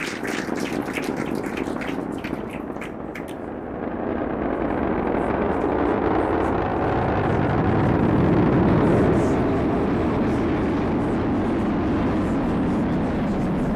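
Falcon 9 rocket's first-stage engines during ascent: a steady, rushing rumble with crackling in the first few seconds, growing louder from about four seconds in.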